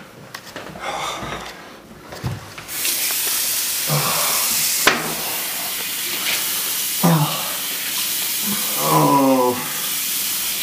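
Water tap turned on and running steadily into a sink, starting about three seconds in, with a sharp click about two seconds later.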